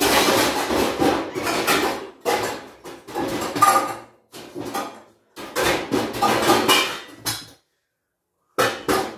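Metal pots, pans and lids clattering and banging loudly as they are handled and stacked, in several bursts with short pauses and a clear break about eight seconds in.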